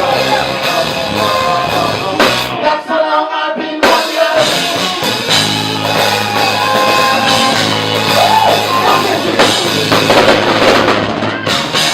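Live rock band playing an instrumental passage on drum kit, electric guitar and bass. The low end and cymbals drop out for about a second roughly three seconds in, then the full band comes back.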